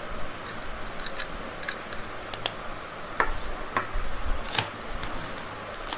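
Light clicks and crinkles of small plastic stationery being handled on a tabletop, with a few louder crackles about three to five seconds in as a plastic-wrapped pack of felt-tip pens is picked up.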